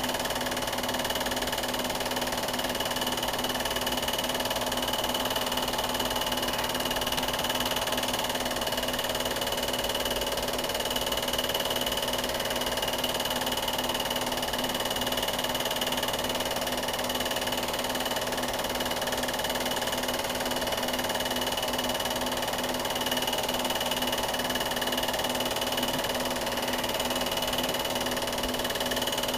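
Steady mechanical whir and hiss with a few constant hum tones, unchanged across the picture's scene cuts: background noise on an old silent film's soundtrack, not a sound from the scene.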